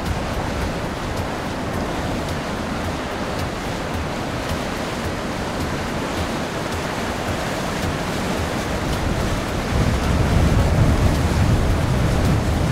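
Steady wind noise buffeting the microphone on a moving boat, with water rushing past; near the end a stronger gust makes it louder and deeper.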